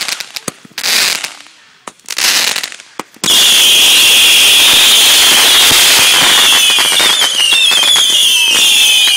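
Consumer fireworks: several short hissing bursts, then a ground fountain firework catches about three seconds in and sprays with a loud steady hiss, crackling, and a high whistle that slowly falls in pitch.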